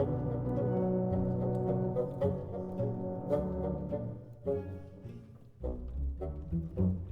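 Background music with low bowed strings and held notes, turning to short plucked bass notes in the second half.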